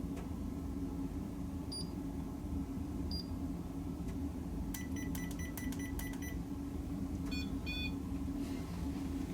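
A small electronic device beeping over a steady low hum. Two single short beeps come early, then a quick run of about eight evenly spaced beeps, then a few more beeps of a different pitch near the end.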